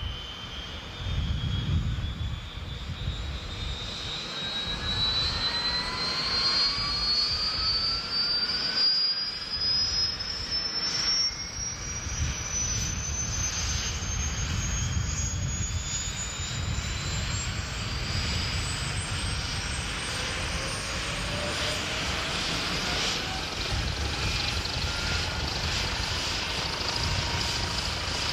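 UH-1 Huey helicopter's turbine engine spooling up on the ground, its whine rising slowly in pitch for about twenty seconds while the turning two-bladed rotor beats low underneath.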